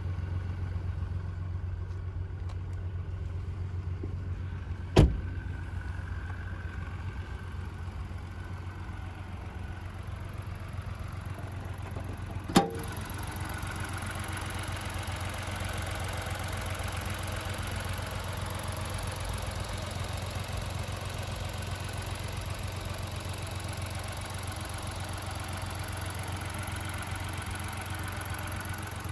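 Ford Puma ST's 1.5-litre three-cylinder EcoBoost petrol engine idling with a steady low hum. Two sharp clicks sound, about five seconds in and again near the middle.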